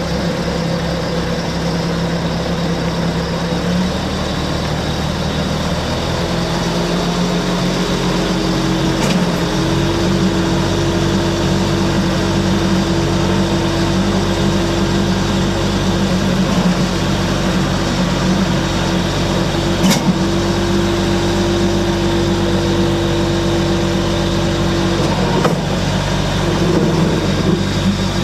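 Case 430 skid steer loader's diesel engine running steadily, its pitch stepping up slightly a few seconds in and again around nine seconds, with a few sharp clicks.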